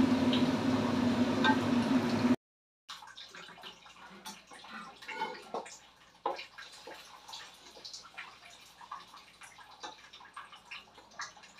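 Stir-frying napa cabbage, carrots and green beans in a wok with a wooden spatula, over a steady low hum. After a cut about two seconds in, quieter scattered clinks, scrapes and light wet sounds as the wok is worked.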